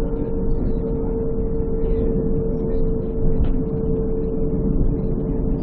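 Končar NT 2200 low-floor tram running at a steady speed: a continuous rolling rumble with a steady electric whine held on one pitch.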